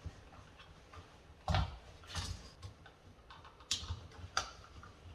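Scattered clicks and knocks as a wired light switch and its wires are pushed into a wall electrical box, the loudest knock about a second and a half in.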